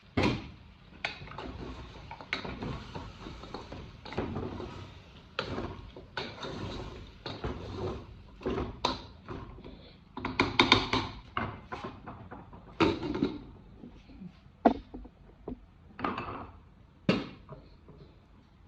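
Irregular knocks and clatter of pots, lids and utensils being handled in a kitchen, with a denser, louder run of clatter about ten seconds in.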